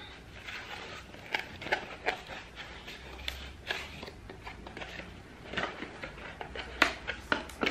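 A cardboard product box being handled and turned over, with scattered light taps, scrapes and rustles of the cardboard. A few sharper clicks come near the end.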